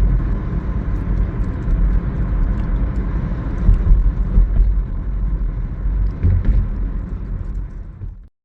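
Strong wind buffeting the microphone: a loud, gusty low rumble that rises and falls, cutting off suddenly near the end.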